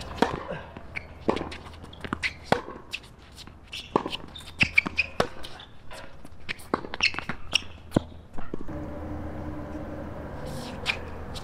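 Tennis serve and rally on an outdoor hard court: sharp racket-on-ball strikes and ball bounces, roughly one every second or so, with players' footsteps. A low steady hum comes in near the end.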